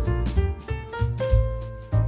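Background jazz music, with piano notes over a walking bass and drum hits.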